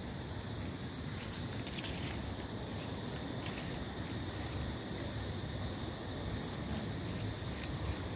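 Insects droning with one steady, high-pitched tone, over a low outdoor rumble and a few faint rustles.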